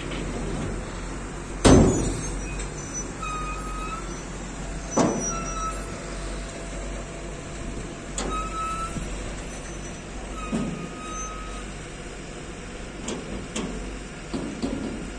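A crane's diesel engine running steadily, with several sharp bangs and knocks, the loudest about two seconds in, and a few short high whistles.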